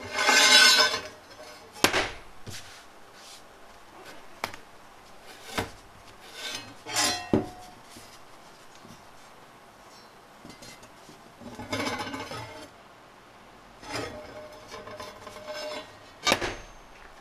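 A steel segment of an old circular saw blade handled on a workbench: it scrapes across the bench top several times and knocks against it sharply about four times, one knock leaving a brief metallic ring. The loudest moment is a scrape right at the start.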